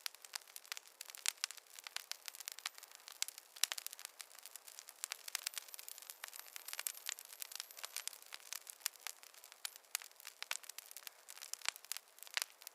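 Fire crackling in a fireplace: a dense, irregular run of sharp pops and snaps over a faint hiss, with no low rumble.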